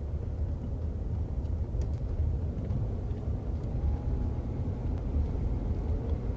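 Steady low rumble with no music or speech.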